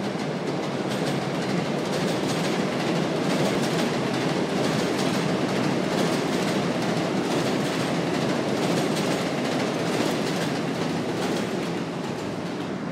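New York City subway train running past close by on its tracks: a steady, loud rumble with rapid clicking wheel clatter, easing off slightly near the end.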